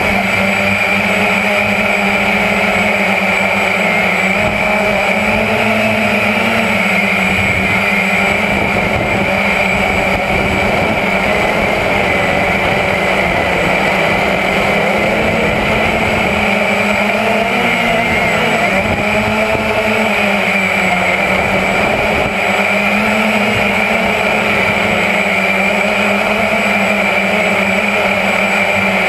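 Walkera QX350 quadcopter's brushless motors and propellers whining, heard close from the drone's own camera. The pitch rises at the start as it lifts off, then wavers up and down as it flies.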